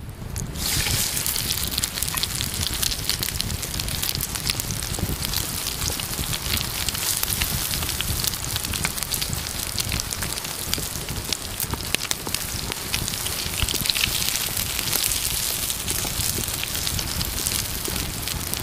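Omelette frying in hot oil in a pan: a steady sizzle full of fast, tiny crackles.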